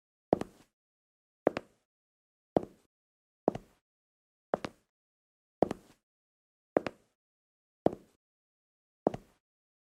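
Footsteps walking at a slow, steady pace, about one step a second, each step a short heel-then-toe double tap, nine steps in all.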